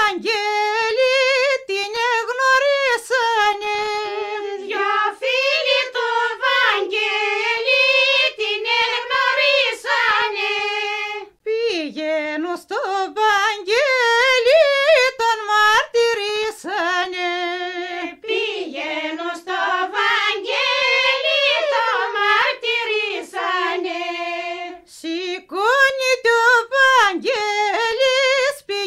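Unaccompanied Greek folk song sung by a single high voice, in long wavering phrases broken by short breath pauses, about eleven seconds in and again near twenty-five seconds.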